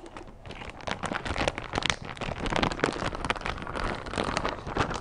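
Thin clear plastic bag crinkling and rustling continuously as a welding ground clamp and its cable are pulled out of it by hand.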